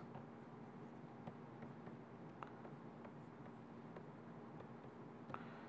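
Faint taps and scratches of a stylus writing on a tablet screen, scattered and irregular, over a faint steady hum.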